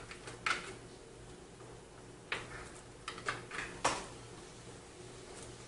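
Handling noise as SATA cables are plugged into SSDs on the back of a PC case: a few scattered plastic clicks and light knocks, bunched together between three and four seconds in.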